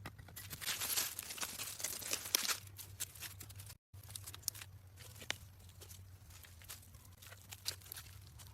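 Irregular rustling and crackling, scattered with sharp clicks and snaps, cut off by a brief dropout about four seconds in.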